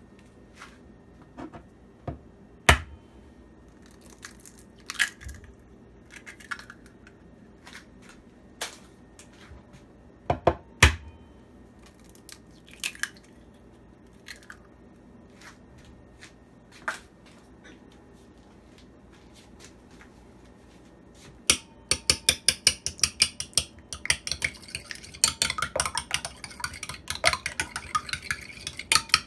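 Eggs knocked against the rim of a ceramic bowl and cracked open, a few scattered sharp taps. About two-thirds of the way in, a fork starts beating the eggs in the bowl: a fast run of clinks of metal on ceramic that gets quicker and denser toward the end.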